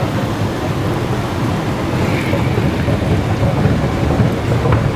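Steady low rumble of an underground metro station's background noise, with no distinct event standing out.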